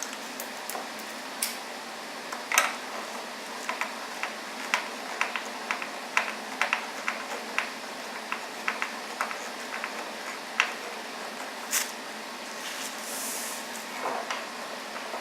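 Scattered light clicks and taps as a new TV and its packaging are handled during unboxing, irregular at about two a second, the loudest about two and a half seconds in. There is a brief hiss, like plastic or foam sliding, about thirteen seconds in.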